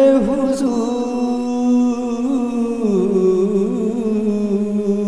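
A male voice singing a naat unaccompanied, holding one long ornamented note that wavers and then steps down in pitch about three seconds in.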